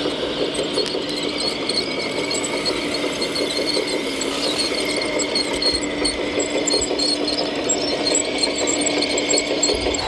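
Hydraulic pump drive of an RC Liebherr 960 SME excavator model running with a steady buzzing whine and fine rapid pulsing, its pitch dipping slightly about four seconds in.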